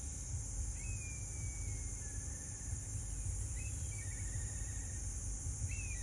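A bird calls three times. Each call is a high whistle that slides down into a lower, wavering trill. Underneath runs a steady low rumble of outdoor background noise.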